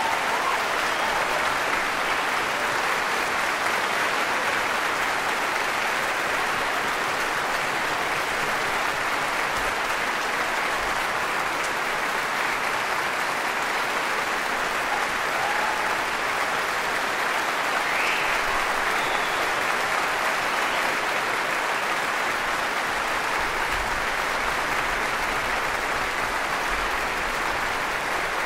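Large concert-hall audience applauding, steady and sustained.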